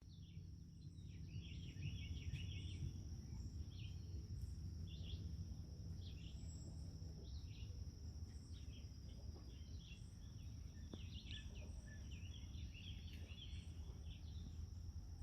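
Faint outdoor ambience: small birds chirping and twittering again and again over a low steady rumble, with a constant thin high-pitched whine.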